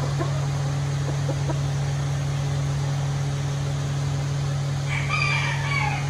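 Brahma chickens clucking softly, then one louder call about a second long near the end, dipping in pitch as it stops, over a steady low hum.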